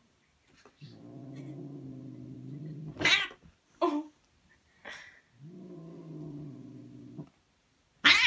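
Two house cats fighting: two long, low, drawn-out yowls, broken by short sharp hisses, then a loud burst of hissing as they grapple near the end.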